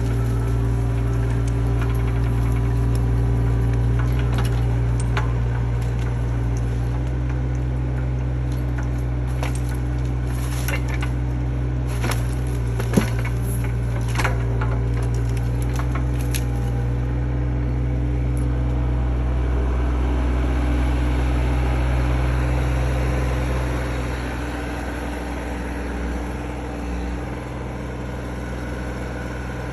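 Mini excavator engine running steadily while its log grapple handles wood, with a cluster of sharp cracks and snaps of breaking branches in the middle, the loudest about 13 seconds in. The engine gets a little quieter near the end.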